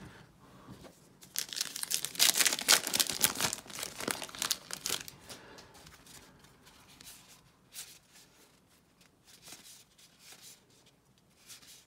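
Plastic wrapper of a Topps Archives baseball card retail pack being torn open and crinkled, crackling loudest from about a second in to three and a half seconds. Then softer rustling and flicks as the cards are handled and sorted.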